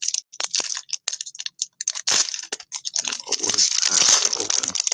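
Trading-card packs and cards being handled and opened: a run of short crinkles and rustles, then a longer, busier stretch of crinkling and rustling from about two seconds in.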